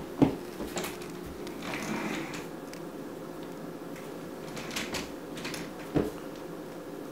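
Light plastic rattles and knocks of a small toy umbrella stroller being handled and pushed on a laminate floor, with sharper knocks just after the start and about six seconds in.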